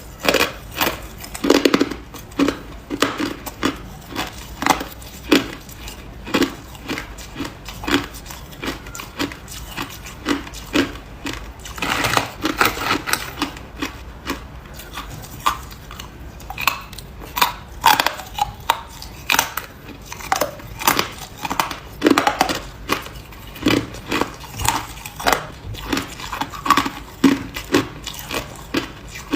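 Ice being bitten and chewed close to the microphone: a steady run of sharp, crisp crunches, about two a second, with a denser crackling stretch about twelve seconds in.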